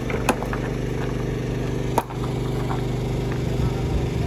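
Stones clacking against each other as they are handled and dropped, with a sharp knock just after the start and a louder one about two seconds in. A machine engine runs steadily underneath.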